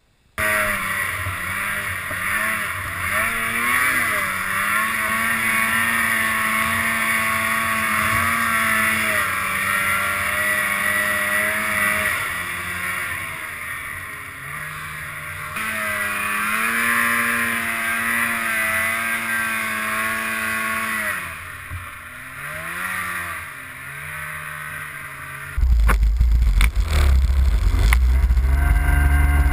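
Polaris RMK snowmobile engine running under load through deep powder, its pitch rising and falling as the throttle is worked, over a steady hiss of track and snow. About 26 seconds in, a loud low rumble of wind buffeting the microphone is added.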